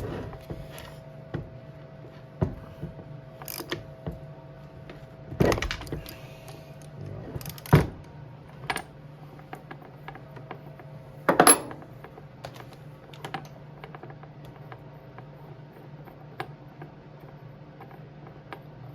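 Hand tools working on a two-stroke dirt-bike engine's top end: a socket ratchet clicking and scattered metal clicks and clanks, with louder knocks about five and a half, seven and a half and eleven and a half seconds in. A steady low hum runs underneath.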